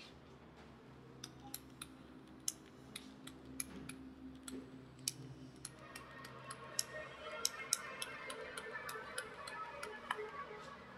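Irregular sharp clicks and crackling from gloved hands working over wet-cupping sites on the skin, growing busier about halfway through, over a faint steady low hum.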